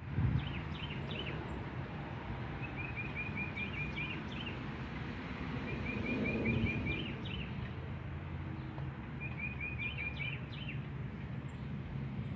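A songbird singing: three short runs of rapid, evenly repeated high chirps, with scattered single falling chirps between them, over a steady low outdoor background rumble.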